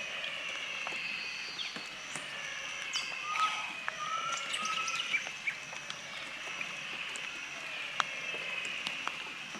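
Wetland wildlife ambience after rain: a steady high-pitched chorus of calling animals, with a short high pulse repeating about twice a second. A few brief rising bird chirps come in the middle, and scattered sharp clicks run through it.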